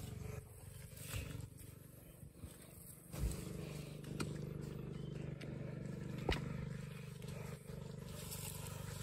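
A vehicle engine running steadily. It eases off for the first few seconds, picks up again about three seconds in, and holds steady, with a couple of sharp knocks.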